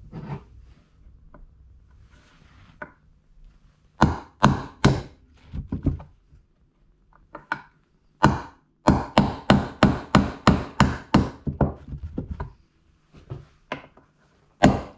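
Hammer striking a nail punch to drive snapped-off nails below the surface of reclaimed timber boards. A few sharp blows come about four seconds in, then a run of quick, even strikes, roughly three a second, from about eight to twelve seconds, and a few more near the end.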